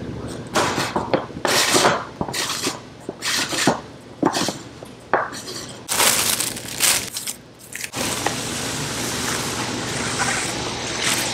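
Plastic end cap of a homemade black plastic-pipe rod tube being worked loose and pulled off, with a run of knocks, clicks and scrapes. About two-thirds through, a steady rushing scrape begins as the bubble-wrapped fishing rods slide out of the tube.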